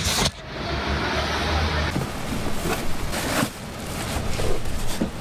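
Steady outdoor background noise with a low rumble, like vehicles and activity nearby, broken by a few short knocks. The rumble is the noise of people moving in across the street.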